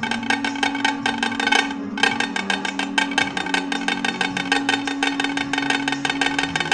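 Background music with a fast, steady percussive beat over held notes.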